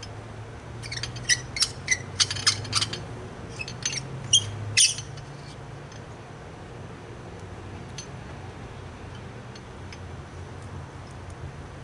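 Glass light bulbs and their sockets being handled during a bulb swap on a dim bulb tester: a quick run of about a dozen sharp clinks and clicks over the first five seconds, over a low steady hum.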